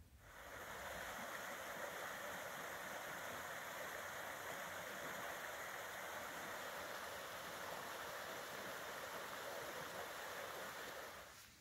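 Small rocky hill burn running steadily, a constant rush of water over stones that fades out near the end.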